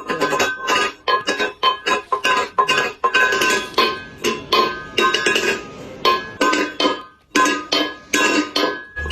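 Background music made of quick, evenly repeated struck notes with a steady melody, with a brief gap about seven seconds in.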